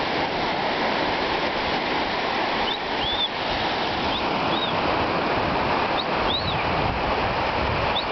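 Sea surf washing steadily over rocks, with short high chirps in pairs about every second and a half.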